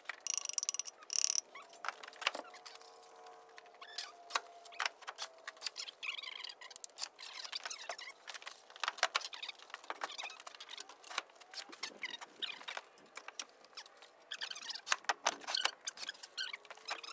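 Manufactured stone siding panels being handled and fitted against a wall: scattered clicks, taps and light clatters, some sharp, with a faint drawn-out squeak a couple of seconds in.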